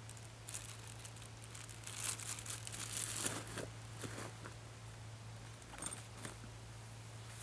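Crinkling and rustling of gear bags and their contents being handled and packed, in irregular bursts that are busiest a few seconds in, over a faint steady low hum.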